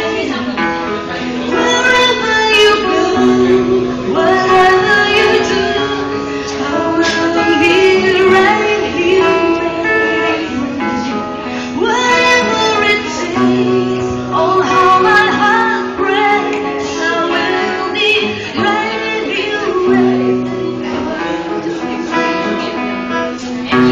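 A woman singing a song live over instrumental backing.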